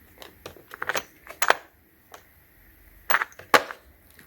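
Irregular hard clicks and clacks of a tap and die set's pieces and case being handled, about a dozen in all, with the sharpest a little past the middle and near the end.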